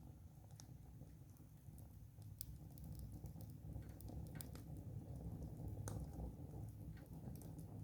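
Wood fire crackling: scattered sharp pops and snaps, a handful over several seconds, over a low steady rumble.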